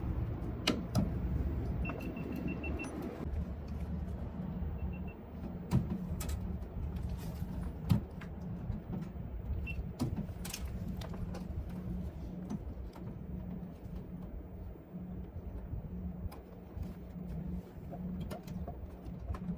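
A steady low machine hum, with scattered clicks and knocks, and a quick run of high beeps about two seconds in.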